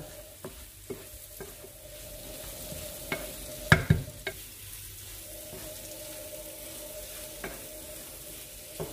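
Chicken pieces and chilli spice paste sizzling in a non-stick pan while being stirred with a spatula. The spatula scrapes and knocks against the pan several times, loudest a little under four seconds in. This is the constant-stirring stage of a dry stir-fry, cooking out the raw smell of the chilli powder.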